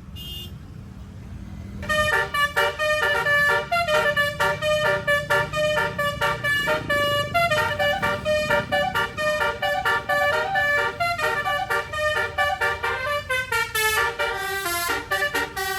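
Bus telolet horn playing a fast tune of short, chord-like notes, several a second, starting about two seconds in, over the low rumble of a running bus.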